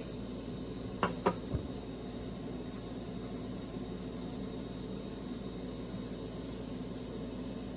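Steady low mechanical hum, with two quick clicks and a soft knock about a second in.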